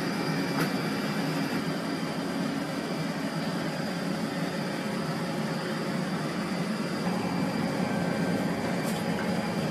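Steady hum of an Ohio-class submarine's onboard machinery and ventilation, with a faint, thin high-pitched whine running over it.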